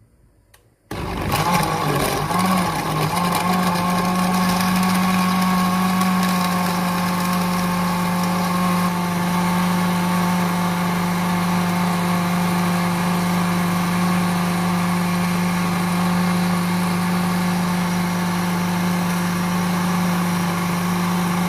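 Electric blender switched on about a second in, blending oranges, apple, lemon, sugar, ice cubes and water into juice; the motor wavers briefly, then runs at a steady pitch and stops near the end.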